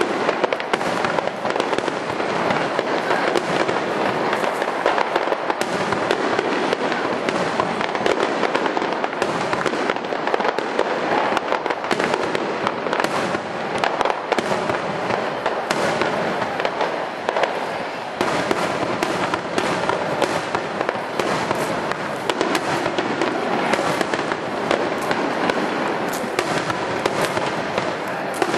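Aerial firework shells bursting in a rapid, unbroken barrage: many sharp bangs over a dense, continuous crackle.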